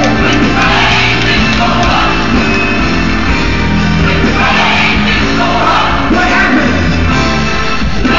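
Loud recorded song with singing, played over the sound system in a large hall, with shouts mixed in.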